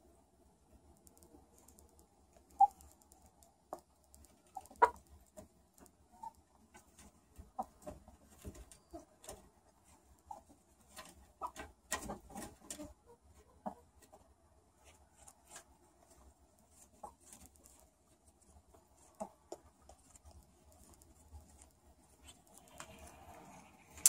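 Faint sounds of roosting chickens stirring after being woken: scattered short clucks and chirps, with shuffling and scratching clicks on the roost, two sharper ones about two and a half and five seconds in.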